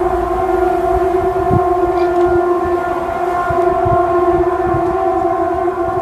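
A loud, steady, horn-like drone holding one low pitch without rising or falling, an unexplained 'sky trumpet' noise that was heard outdoors and is called incredibly loud. Low thumps on the microphone sound underneath it.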